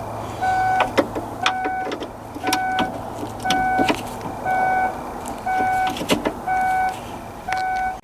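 Minivan's electronic warning chime beeping steadily about once a second, mixed with sharp clicks and knocks of hands and tools working the window glass clips free inside the open door.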